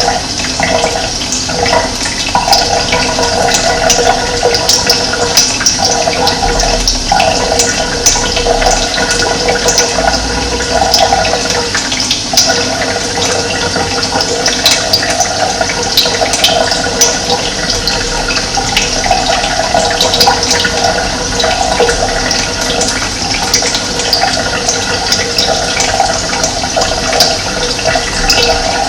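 Running water, a steady continuous rush.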